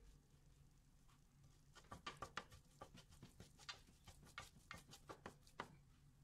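Faint scraping and tapping of a spatula stirring spice powder into fried onion-tomato masala in a nonstick pot, a quick irregular run of strokes starting about two seconds in.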